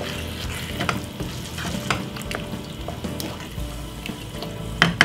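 Wooden spoon stirring thick minced-beef bolognese sauce in a pan on the stove, the sauce sizzling, with scattered knocks of the spoon against the pan and a quick run of them near the end.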